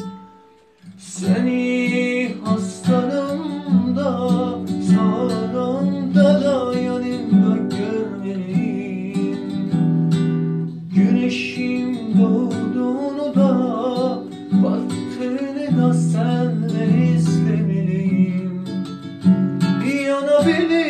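Music: an acoustic guitar strummed and plucked under a voice singing a melody. It starts again about a second in, after a brief drop.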